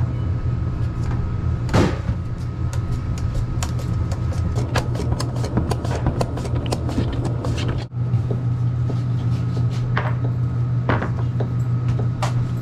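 Potatoes sliced on a hand mandoline, a fast run of sharp clicking strokes through the middle, over a steady low machinery hum. After a cut about eight seconds in, a few separate knocks of a knife chopping tomatoes on a cutting board.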